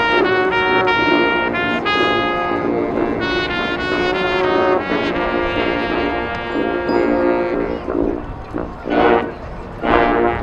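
Marching band brass playing a melody in held notes that change about twice a second, then dropping softer near the end, broken by a couple of short, loud chords.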